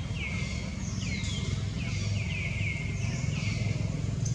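Birds calling in short, repeated falling notes, several a second and overlapping, over a steady low rumble.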